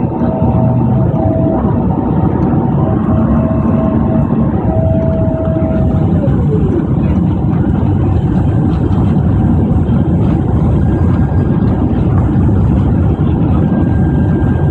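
Boeing 767-400ER cabin noise on final approach: a steady loud rush of engine and airflow noise. A steady whine above it drops in pitch and fades about six seconds in.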